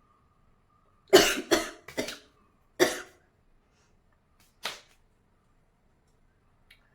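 A woman's short, forceful bursts of breath as she takes a pinch of snuff: four in quick succession about a second in, the first the loudest, and one more shortly before five seconds.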